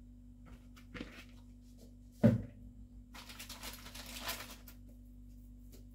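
Kitchen handling noises. There is a light knock about a second in and a loud knock about two seconds in, like something set down hard. This is followed by about a second and a half of rustling, all over a steady low hum.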